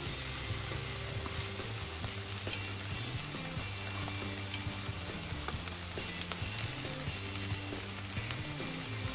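Skewered chicken, hot dogs and mushrooms sizzling steadily on a foil-lined grill. A few light clicks of metal tongs come near the end.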